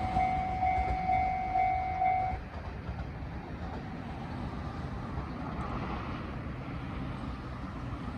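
Japanese level-crossing warning bell ringing in quick, even pulses over the low rumble of a two-car KiHa 110-series diesel railcar pulling away; the bell cuts off about two seconds in as the train clears the crossing, leaving only the fading rumble of the train.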